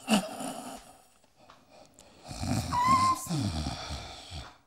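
A woman's acted snoring: a short snort at the start, then a long snore about two seconds in whose pitch slides downward, with a thin whistle partway through.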